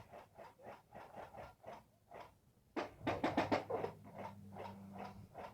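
Quick, even footsteps of a player moving, with a short, louder burst of rapid clattering about three seconds in.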